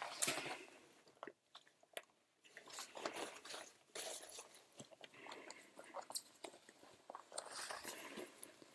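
Rubber-coated hood and facepiece of an M17A2 gas mask rustling and crinkling as they are pulled over the head and adjusted at the neck, in irregular faint crackles and scrapes.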